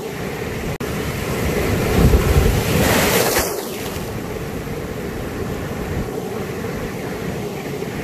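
Ocean surf breaking on and washing around shoreline rocks: a steady rush of noise, with one larger wave crashing about two to three seconds in, the loudest moment.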